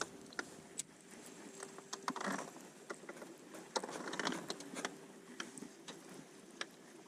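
Faint scattered clicks and small mechanical taps from fishing tackle being handled, the kind a baitcasting reel makes while being cranked, over a faint steady hum.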